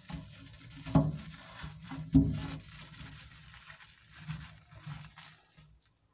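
Damp cloth wiping and rubbing the inside of a microwave oven's cavity, with two knocks against the oven about a second and two seconds in.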